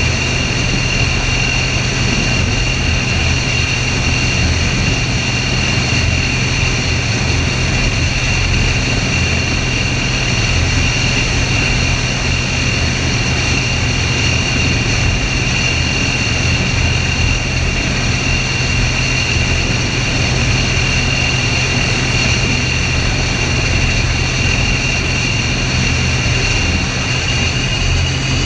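Mi-28 attack helicopter in steady flight: the high whine of its twin turboshaft engines over the even low drone of the rotor, picked up close by a camera mounted on the outside of the airframe.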